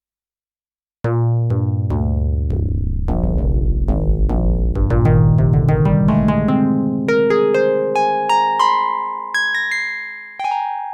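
Donner Starrykey-37 FM synthesizer playing a piano-like patch: notes with sharp attacks and decaying harmonics. It starts about a second in with low notes and chords, then moves to higher held notes. The sound breaks briefly near the end before new notes start.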